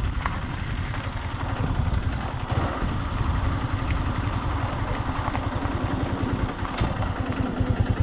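Motorcycle engine running steadily while the bike rides slowly along a rough road, a dense low pulsing of its firing strokes.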